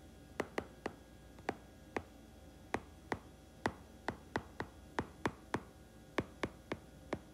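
Stylus tip tapping and ticking on a tablet's glass screen while handwriting: a string of sharp ticks at uneven intervals, two or three a second.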